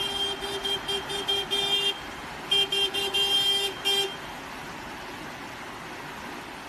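Car horn honking in a quick string of short toots, then a second string after a brief pause, stopping about four seconds in; sounded to get a crocodile to move out of the road. A steady hiss is left after the horn stops.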